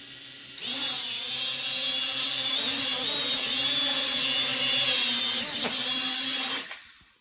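Small quadcopter drone's electric motors and propellers whining steadily, starting up about half a second in, wavering a little in pitch, then dying away near the end.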